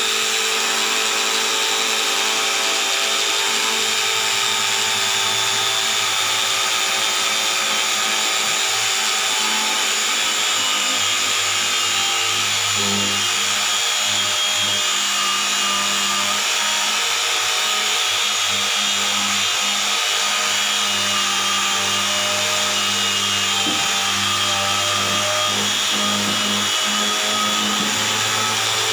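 Electric grinder running continuously as it sharpens a golok machete blade: a steady motor whine with a grinding hiss on top, the whine wavering slightly as the blade is worked against the wheel.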